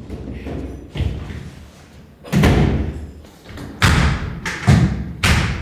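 About five heavy thumps at uneven intervals, the loudest in the second half, each with a short echo from construction work in the bare timber-framed house.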